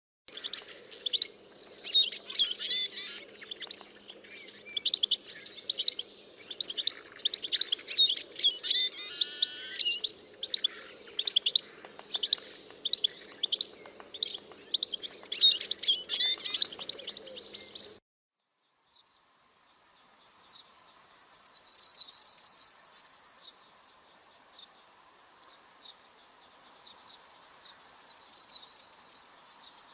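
Small birds chirping and singing in a busy, overlapping chorus that stops abruptly. After a short pause, two short, fast trills come several seconds apart, each ending in a higher note.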